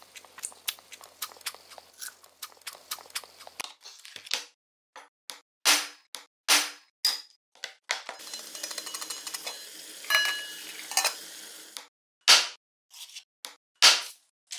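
Rapid small clicks and taps, then a few sharp knocks and about four seconds of dense crackling. Near the end, a kitchen cleaver chops down twice onto photo cards on a wooden cutting board, with loud single impacts.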